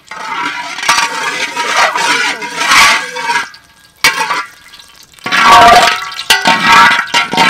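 Hot oil sizzling in a large metal wok while a metal spatula scrapes and stirs it. It comes in two loud stretches with a short lull in between.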